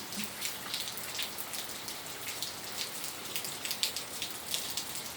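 Hail falling steadily, with many sharp, irregular ticks of hailstones striking over a continuous hiss.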